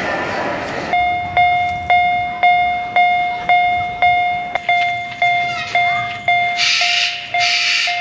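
Miniature railroad crossing signal's warning bell dinging steadily about twice a second, each ding ringing out briefly. It follows about a second of running noise from the mini train, and two short hisses come in near the end.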